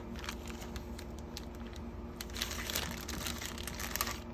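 Plastic pouch crinkling and rustling as it is handled, with scattered light crackles, busiest in the middle, over a faint steady hum.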